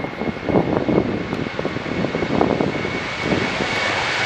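Boeing 737-800 airliner's CFM56 jet engines running as the plane rolls along the runway: a rough, crackling rumble with a steady high whine, growing louder toward the end as it nears.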